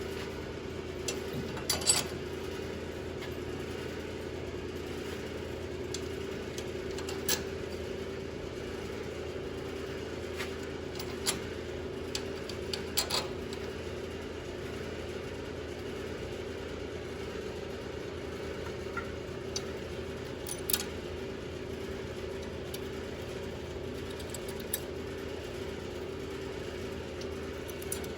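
Steady mechanical hum throughout, with scattered sharp metallic clinks and clanks from tools and parts being handled while a car's rear axle is fitted and its in-and-out play measured.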